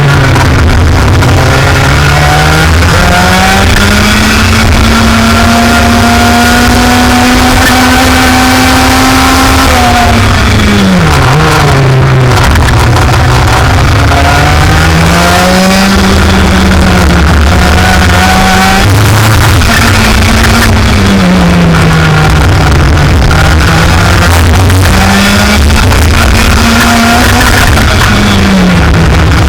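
Race engine at high revs, its pitch climbing steadily for long stretches and dropping sharply at intervals as it is throttled up and off, with music mixed in. The uploader calls it a bad sound from engine problems.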